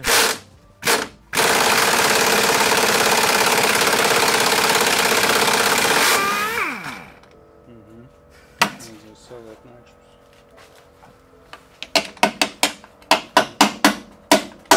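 Pneumatic impact wrench running on compressed air, spinning off a rear bumper bolt: two short bursts, then about five seconds of steady hammering that winds down in pitch as the trigger is let go. Near the end, a quick run of sharp clicks.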